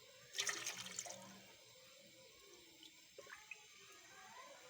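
Water poured into a pot to be boiled for kahwa: a splashing pour about a second long, starting a moment in, followed by a couple of faint taps.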